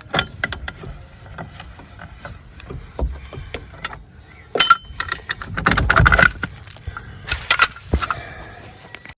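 Hand tools and loose metal and plastic parts under a Polski Fiat 126 clicking, knocking and scraping as fasteners are worked out and a part is pulled free. The work comes in irregular bursts, with the busiest rattling in the second half.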